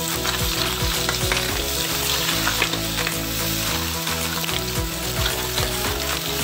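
Snails in their shells dropped by hand into a hot steel wok of frying paste, sizzling steadily, with scattered sharp clicks as the shells land against the wok and each other.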